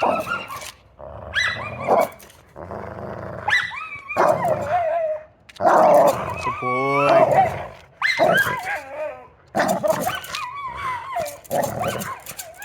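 Big dog vocalizing in a run of pitched, wavering calls, about one every second or two, with a long falling call in the middle.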